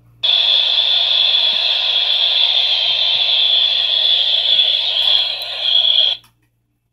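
Passing freight train of empty flatcars heard through a railcam's live audio stream played back over a computer speaker: a harsh, steady noise with a shrill high edge that cuts in suddenly and cuts off abruptly about six seconds in.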